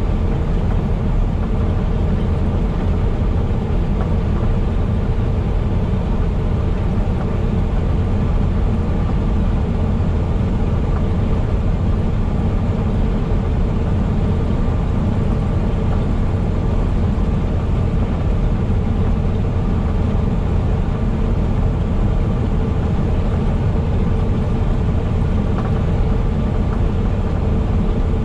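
Heavy truck driving at a steady speed: a constant low engine drone and road rumble, with a faint steady whine over it.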